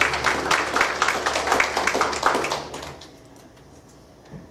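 Congregation applauding as a song ends, the claps fading out about three seconds in to quiet room tone.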